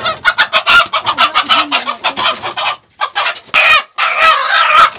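Chickens squawking loudly and clucking in distress, with wings flapping, as a hen is grabbed by hand in the coop, the calls breaking off briefly twice.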